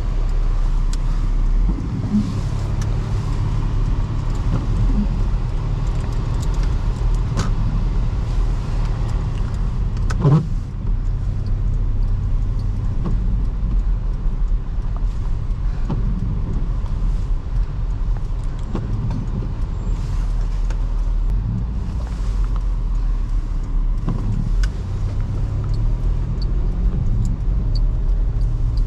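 A 2005 Toyota Highlander's 3.3 L V6 engine running steadily while the car drives on a snowy road, with a constant low hum of engine and tyre noise and scattered light clicks. A short rising squeak comes about ten seconds in.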